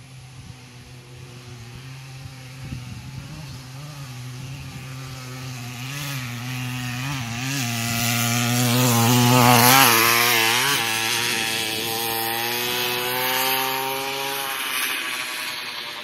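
Goped GSR40 gas scooter's small two-stroke engine running under a varying throttle, pitch wavering. It grows louder to a peak about ten seconds in as it passes close by, then fades out as it moves away.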